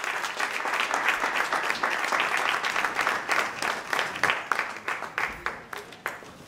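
Audience applauding: a dense patter of many hands clapping that thins out and dies away near the end.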